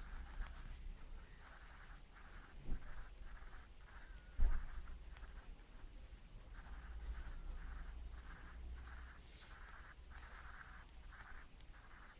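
Pencil scratching on lined notebook paper in quick short strokes, drawing small circles. Two soft knocks break in, about three and four and a half seconds in, the second the louder.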